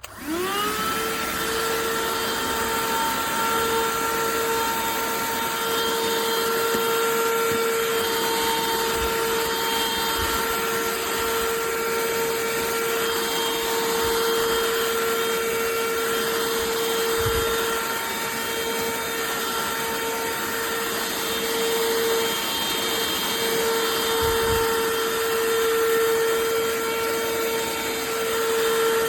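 Cordless handheld vacuum's motor switching on, its pitch rising quickly to a steady high whine over a rush of air, then running on steadily.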